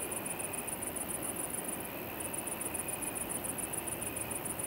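Crickets chirping at night in a fast, even, high-pitched rhythm, about five chirps a second, with a brief pause about two seconds in.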